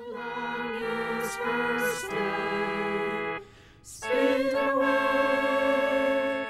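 A small group of voices singing together in harmony, holding long chords, with a short break about three and a half seconds in before a louder held chord.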